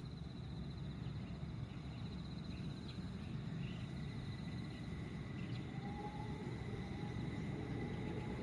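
Quiet outdoor background: a low steady rumble with a thin, steady high-pitched trill over it, insect-like. There are a few soft blips, and a faint short tone about six seconds in.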